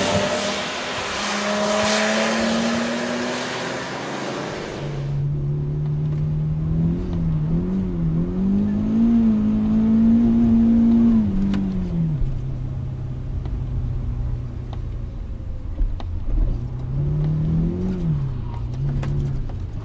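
A BMW Z4 coupé going by on a soaked track, its engine note rising under a loud hiss of tyre spray. About five seconds in, a car engine heard from inside the cabin, muffled, its note rising and falling with the throttle and settling lower about halfway through.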